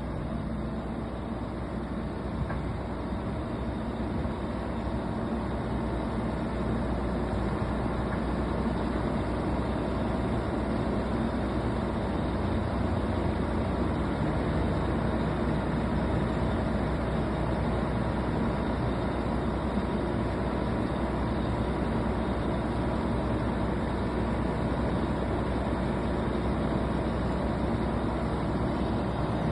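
Diesel engine of a Driltech D40K2 drill rig running steadily, a deep drone with a dense mechanical rush above it. It builds slightly over the first several seconds, then holds even.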